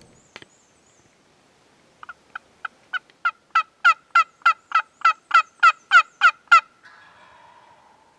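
A turkey calling: a long series of about seventeen short, downward-sweeping calls, about three a second, starting soft and quickly growing loud before stopping abruptly.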